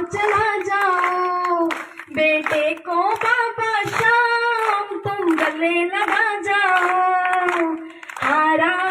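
A woman singing a Hindi devotional bhajan to Khatu Shyam through a microphone, in long held, gliding notes. The singing dips briefly about two seconds in and again near the end.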